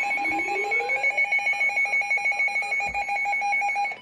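Emergency Alert System alert tones: a layered electronic alarm with a steady high tone over a rapidly pulsing lower tone and a rising sweep in the first second. It cuts off suddenly at the end.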